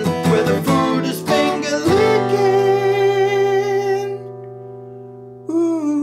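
Acoustic guitar outro music: quick strummed chords, then a long held chord that slowly fades, with a new held note coming in near the end.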